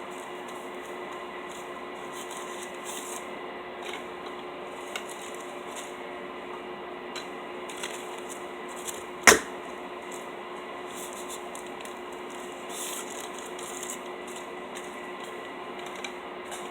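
Paper straw wrappers being torn off and rustled in short, repeated bursts, with one sharp knock about halfway through.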